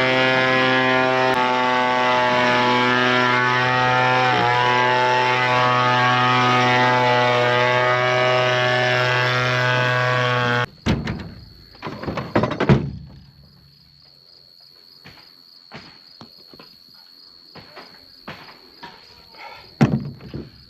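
A blower's engine runs steadily at one speed while dust is blown off a combine, then cuts off abruptly about ten seconds in. After it, crickets chirr steadily, with a few scattered clicks and knocks.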